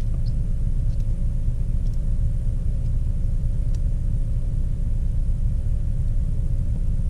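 Steady low rumble with a faint constant hum, and a few faint light clicks scattered through it.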